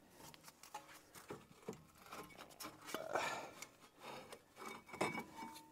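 Front brake caliper assembly being worked off the brake rotor by hand: faint metal scraping and rubbing with scattered small clicks, a little louder about three seconds in and again near five seconds.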